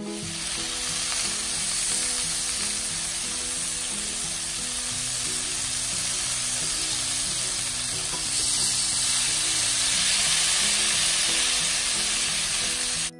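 Beef suya skewers sizzling on an oiled, ridged stovetop grill pan, a steady hiss of frying meat and basted marinade, with music playing quietly underneath.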